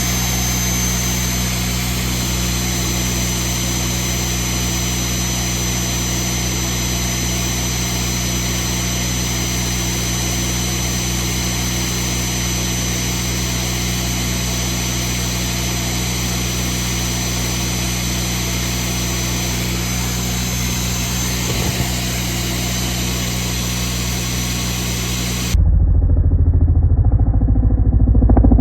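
Magnetic drill running steadily as it bores the end of a crack in a steel excavator boom, over a steady engine hum. Near the end the sound cuts abruptly to a louder, muffled low rumble.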